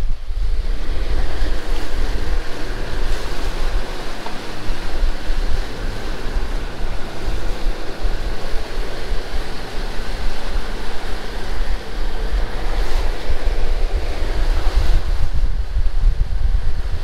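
Wind buffeting the microphone and water rushing past the hull of a fishing boat running ahead to pull up its anchor, with a faint steady engine hum underneath. The low buffeting rumble is the loudest part.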